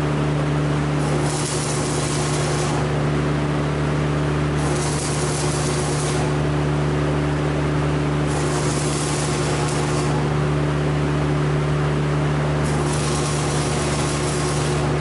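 Electric arc welding in short runs: four separate welds of about one and a half to two seconds each, the arc hissing, with pauses between them. A steady low hum runs underneath.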